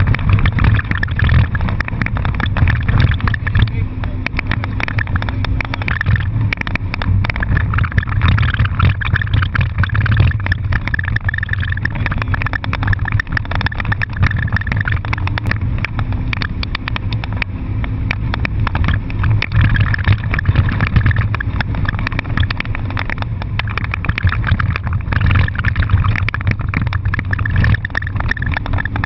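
Car heard from inside the cabin while being driven hard: engine and road noise with a heavy, constant low rumble.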